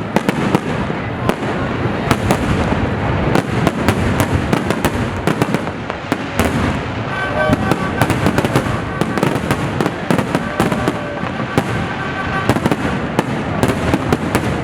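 Fireworks display going off continuously: a dense, rapid string of bangs and crackles over a steady rumbling haze.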